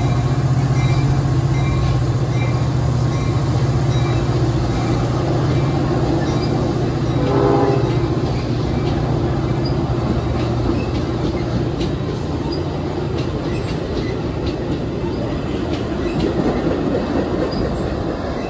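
Metra bilevel commuter train rolling past, its wheels rumbling and clacking on the rails under a steady low drone that fades out about ten seconds in. A short horn blast sounds about seven seconds in.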